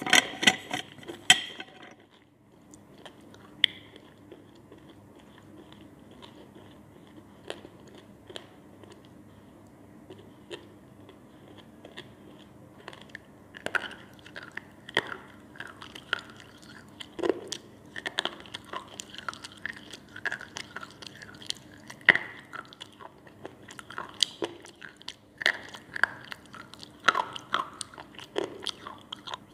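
Crunching as slate pencils (Balak Chaap, compressed clay sticks) are bitten and chewed: a quick run of loud crunches in the first second and a half, a quieter spell with only scattered small crunches, then steady crunching again from about halfway through.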